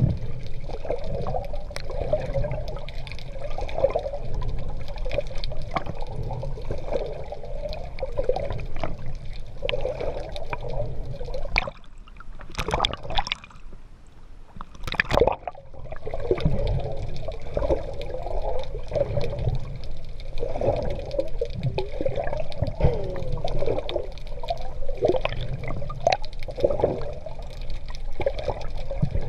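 Seawater sloshing and bubbling around a GoPro carried by a swimmer in the open sea. The bubbling goes quieter for a few seconds near the middle, broken by a few sharp splashes, then picks up again.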